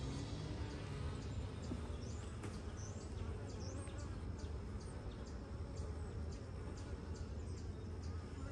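Honeybees from an open hive humming steadily. Faint, evenly spaced high ticks run underneath, and a few short high chirps come about two to three seconds in.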